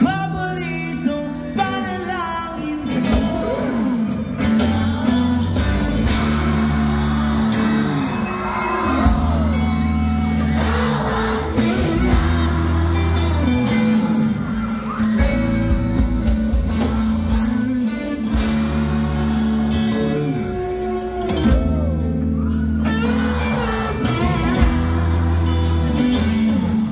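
A live band playing amplified over a PA: electric guitars, bass, keyboard and a steady drum beat, with a lead vocal sung into a microphone.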